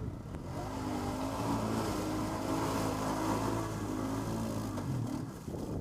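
ATV engine running hard at steady revs while the quad pushes through icy water, with water spraying and ice knocking against the machine. It makes a harsh noise that the riders put down to ice rather than damage. The engine drops away about five seconds in.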